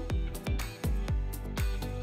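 Background music with a steady beat: deep bass-drum hits that fall in pitch, about two a second, under cymbal strikes and sustained chords.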